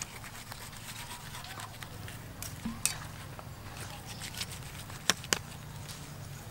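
Knife cutting through the crisp roasted skin of a whole spit-roasted cow, with a few sharp crackles, two of them close together about five seconds in.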